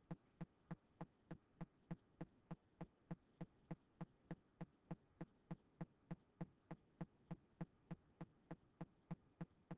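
Faint, very regular ticking, about four ticks a second, over near silence.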